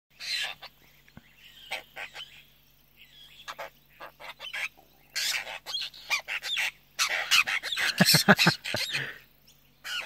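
Several apostlebirds calling with short, harsh chattering notes in quick runs, busiest in the second half.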